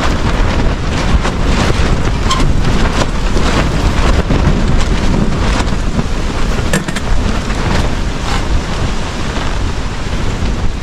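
Storm wind blowing across the microphone, a steady low rumble, with scattered light ticks.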